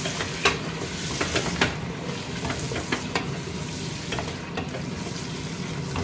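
Raw chicken pieces sizzling in hot oil over browned onions in a stainless steel pressure cooker, stirred with a wooden spoon that scrapes and knocks irregularly against the pot's sides and base.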